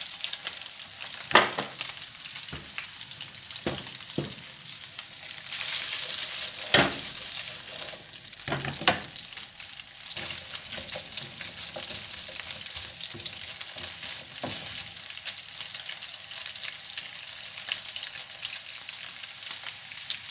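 Diced chicken and onion sizzling in hot oil in a non-stick frying pan as a wooden spatula stirs them: a steady high hiss with a few sharp knocks and scrapes of the spatula against the pan.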